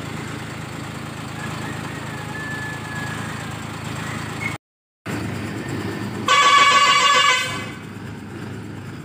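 A bus engine idles with a steady low rumble. The sound cuts out for half a second, and then a bus horn gives one loud blast of about a second.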